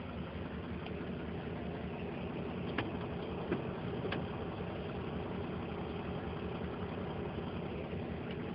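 Diesel engine of a semi truck idling steadily, heard from inside the cab while the truck stands still in stopped traffic, with a few faint clicks a few seconds in.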